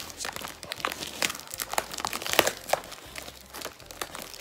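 A cardboard shipping box and its packing tape being pulled open by hand: a run of irregular crackles, the sharpest about halfway through.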